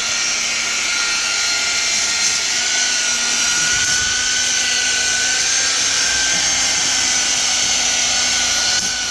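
Electric machine polisher running steadily under load with a high whine, buffing car paintwork in the second stage of mopping.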